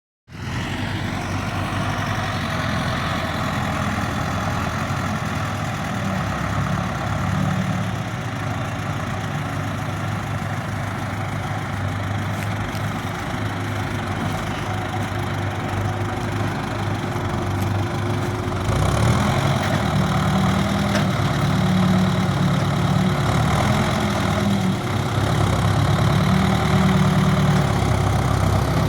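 Heavy farm machinery engine running steadily, with a constant hum over it; about two-thirds of the way through, the engine grows louder and deeper.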